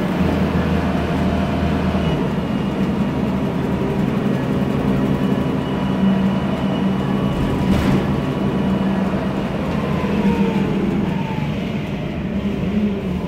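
MAN Lion's Classic city bus heard from inside the cabin while driving: its CNG engine runs with a steady low hum, and the ZF Ecomat six-speed automatic gearbox whines. The whine falls in pitch about ten seconds in, and there is one brief knock about eight seconds in.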